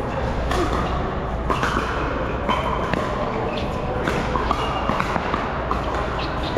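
Pickleball paddles striking the plastic ball in a doubles rally: a series of sharp knocks every half second to a second, echoing in a large indoor hall.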